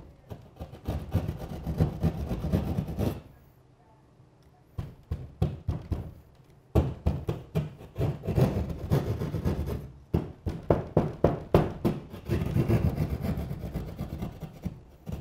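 Hand sheetrock saw cutting through drywall in quick back-and-forth strokes, pausing briefly about three seconds in and then sawing on, cutting the opening for an outlet box.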